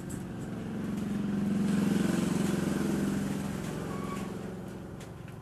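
A motor vehicle's engine passing by, growing louder to a peak about two seconds in and then fading away.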